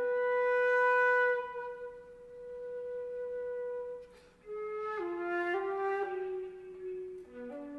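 Solo concert flute holding one long note that swells and then fades, then, after a short breath, a slow phrase of lower notes stepping downward.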